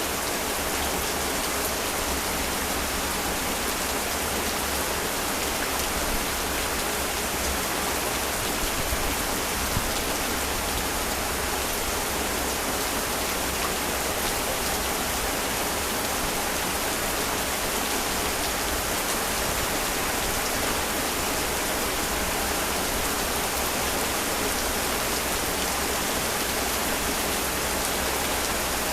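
Heavy rain falling steadily, an even wash of rain noise that does not let up.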